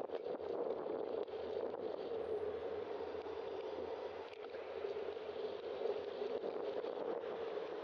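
Steady muffled rushing of wind and road noise on a bicycle-mounted camera's microphone while riding, with a few faint clicks and knocks.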